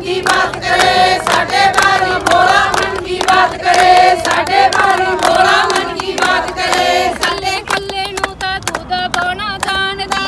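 A group of women singing together, with hand claps keeping a steady beat.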